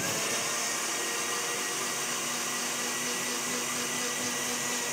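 Countertop electric blender running steadily, puréeing soft-boiled carrot, meat and chicken stock into a fine porridge.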